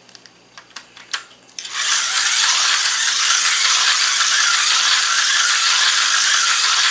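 A Tyco Corvette slot car running laps around the track: after a few light clicks as it is set in the slot, its small electric motor, gears and pickup shoes start a steady, high buzzing rattle about two seconds in. The motor has just been oiled and its pickup pads cleaned.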